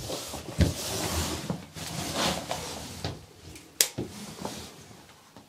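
Rustling and handling as a chalk line is held taut down a wall, with a dull thump about half a second in. Just under four seconds in comes one sharp snap as the chalk string is pinged against the wall to mark a panel edge.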